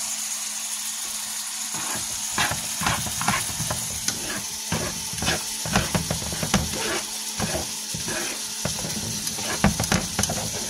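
Eggs sizzling in a stainless steel frying pan as a steady high hiss. From about two seconds in, a spatula scrapes and stirs through them in quick, irregular strokes.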